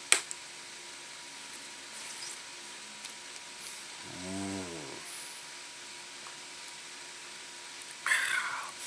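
A sharp click just after a swig from a plastic bottle. About four seconds in comes a man's low hummed 'mmm' that rises and falls in pitch, and near the end a short breathy exhale, over a faint steady background hum.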